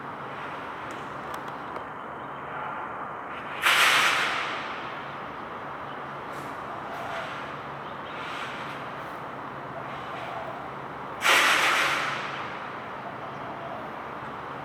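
Steady outdoor background noise with two sudden, loud hisses about seven and a half seconds apart, each dying away over about a second, and a few fainter swells of noise between them.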